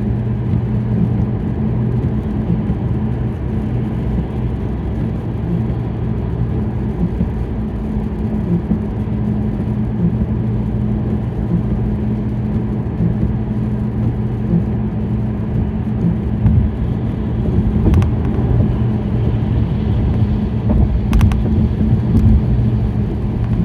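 Car driving on a rain-soaked road, heard from inside the cabin: a steady engine and tyre drone with a constant low hum. A couple of brief clicks come near the end.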